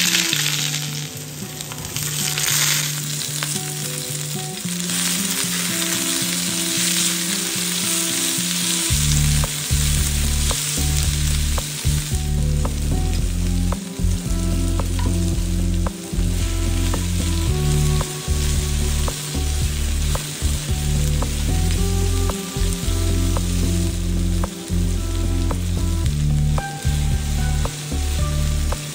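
Chopped onions hit hot oil in a frying pan and sizzle, loudest in the first few seconds. The sizzling of the onions, tomatoes and chillies runs on as a wooden spatula stirs them. Background music plays along, its bass much stronger from about nine seconds in.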